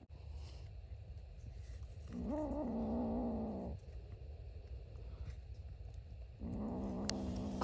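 A cat giving two long, low, drawn-out meows: one about two seconds in and the other near the end, each lasting about a second and a half with a slightly wavering pitch.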